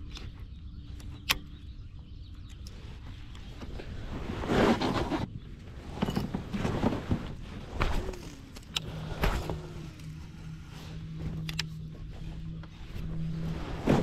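Clicks and knocks of rod and tackle being handled in a kayak, with a louder rustling burst about four to five seconds in. From about nine seconds in, a low steady electric motor hum that swells and dips, the kayak's electric trolling motor running.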